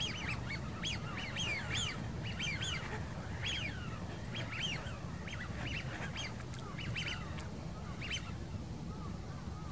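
A flock of waterfowl on the lake calling, many short calls overlapping in quick succession, thinning out and stopping about eight seconds in. A steady low rumble runs underneath.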